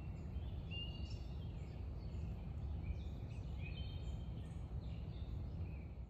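Several birds calling and singing in short chirps and whistles over a steady low background rumble.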